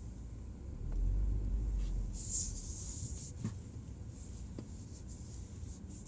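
Low rumble from an Audi A4 accelerating, the unwanted noise its owner is trying to trace; it swells about a second in and eases off again, with a brief hiss and a few light clicks.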